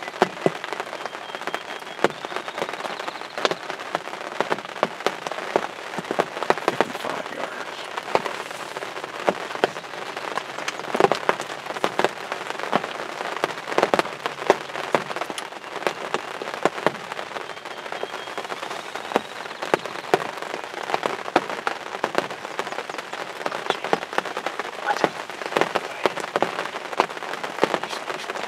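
Steady rain, with many sharp, irregular drop hits landing close by on a hunting blind. A faint rising whistle comes twice, a couple of seconds in and again about two-thirds of the way through.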